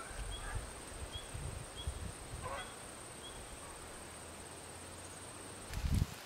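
A flock of geese flying over, honking faintly with calls spaced about half a second apart that thin out and stop after about three seconds, over a steady thin high hum. Near the end, a short low thump and rustle.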